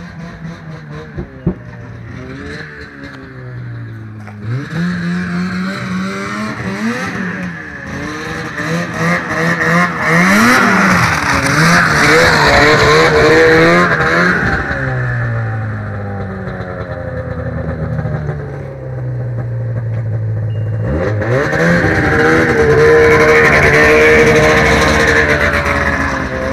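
Snowmobile engine revving hard and easing off again and again as the sled spins donuts on packed snow, its pitch swinging up and down. It settles back to a steadier, lower running note between two long spells of high revving.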